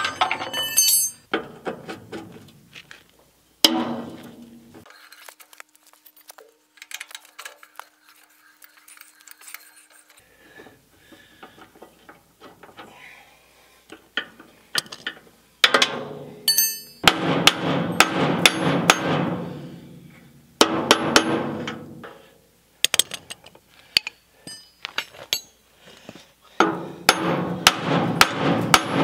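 Cordless impact driver run in bursts of a few seconds on rusted bolts of a cement mixer's trailer frame, the longest bursts in the second half, amid sharp metal clinks and knocks of wrenches and loosened parts.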